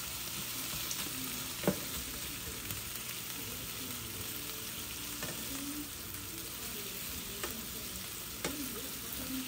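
Sliced zucchini and onions sizzling in butter in a small nonstick frying pan, stirred with a plastic slotted spatula. A sharp knock of the spatula against the pan comes about two seconds in, and a lighter one near the end.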